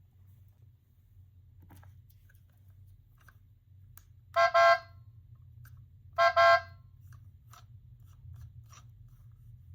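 Gachapon capsule toy's speaker playing a car-horn sound: two double honks about two seconds apart, each a quick beep-beep. Faint clicks come between them.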